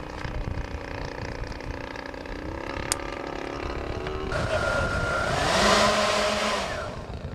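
An electric ducted fan starts suddenly about four seconds in, a loud whooshing whine that rises in pitch and then winds down within about three seconds. A sharp click comes just before it.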